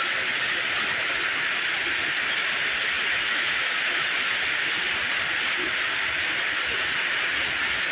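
Heavy rain pouring down on a flooded road: a dense, steady hiss that holds at the same level throughout.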